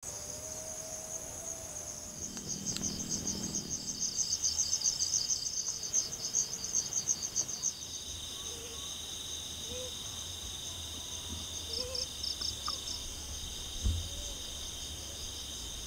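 Night insects chirping steadily in high-pitched bands, with a fast pulsing trill from about two to eight seconds in. A brief thump comes near the end.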